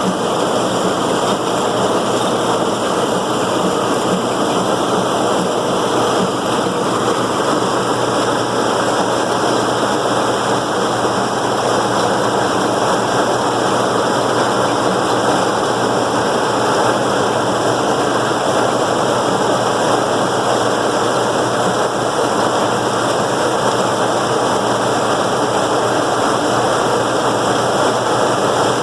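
John Deere 6400 tractor and New Idea pull-type corn picker running steadily while picking ear corn: a loud, even machine noise with a low engine hum underneath.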